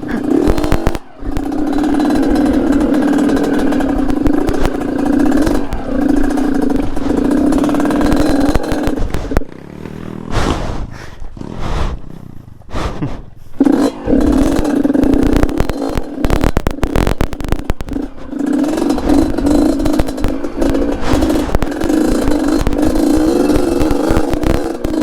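Two-stroke Yamaha DT trail bike with a Yamaha RX-King engine running hard at fairly steady revs over rough ground. Roughly ten seconds in, the throttle eases off for a few seconds while clattering knocks come through, then the engine pulls again.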